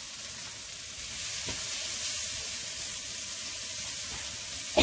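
Onion-tomato masala with ground spices frying in oil in a nonstick pan: a steady sizzle, with a wooden spatula stirring and scraping through it. A single sharp knock comes near the end.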